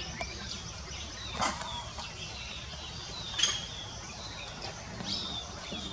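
Forest birds calling and chirping in short, high notes, with two louder, sharper calls about a second and a half and three and a half seconds in.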